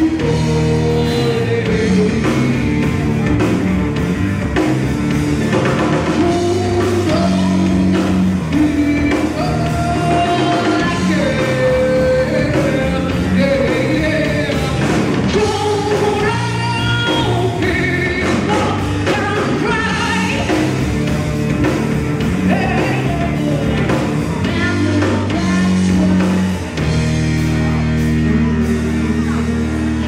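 Live rock band: a female lead singer over electric guitar, bass guitar and drum kit. Near the end the band settles onto a held chord.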